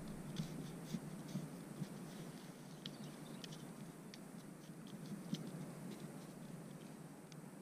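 Orange Garrett Pro-Pointer pinpointer scraping and poking through loose, damp soil in a dug hole: faint, irregular scratching with light ticks of dirt and grass stems.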